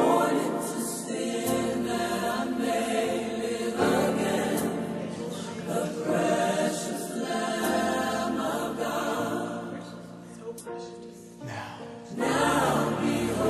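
Background music with a choir singing; it drops in level briefly and swells back up near the end.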